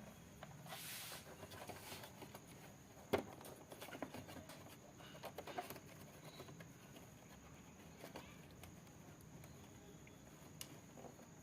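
Faint scattered clicks and light knocks of hands and tools handling a TV speaker and its wiring, with one sharper knock about three seconds in.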